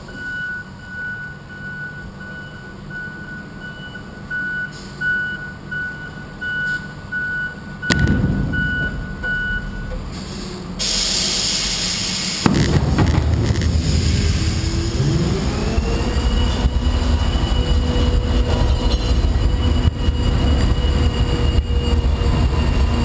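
A hooklift truck reverses with its backup alarm beeping a little faster than once a second over the diesel engine. A clank and a short hiss of air follow. The engine then speeds up, and a hydraulic whine rises and holds steady as the hook arm pulls the dumpster up.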